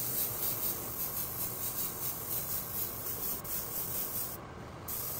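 Airbrush hissing as it sprays thin black acrylic, a steady high hiss that cuts off about four seconds in and comes back briefly near the end.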